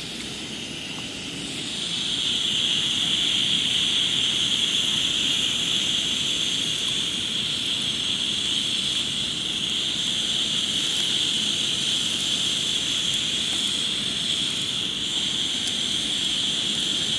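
Hanwoo beef sizzling on a hot grill pan, a steady hiss that grows louder about two seconds in as more meat goes down.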